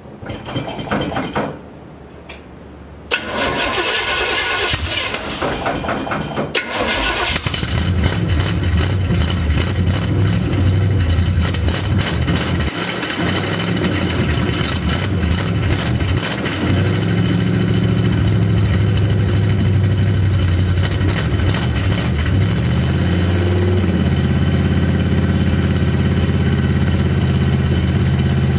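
A 1978 Chevrolet Suburban engine cranking over on the starter from cold and catching about seven seconds in, then running loud through open headers with no mufflers. Its idle speed steps up a couple of times.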